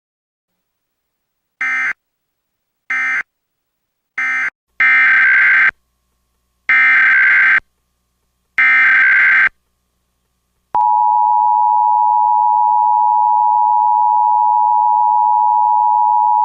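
Emergency Alert System (EAS) SAME data bursts: three short end-of-message bursts, then three longer header bursts, each a harsh warbling digital screech. About a second later the steady EAS two-tone attention signal starts and holds.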